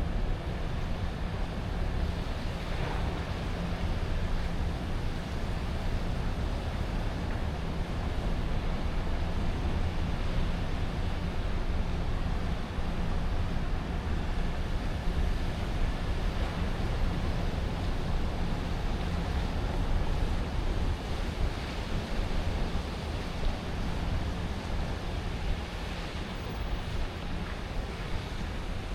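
Steady city ambience: a continuous wash of distant traffic noise with a low hum underneath, unchanging throughout.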